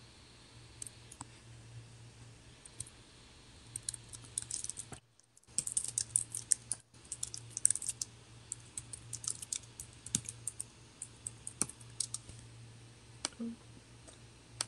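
Typing on a computer keyboard: irregular runs of key clicks starting about four seconds in, over a faint steady hum.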